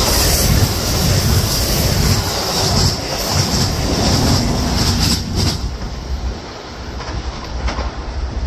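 Pacific Surfliner bilevel passenger cars rushing past at speed, wheels on the rails giving a loud steady hiss with a few clicks about five seconds in. The sound drops away about six seconds in as the last car passes.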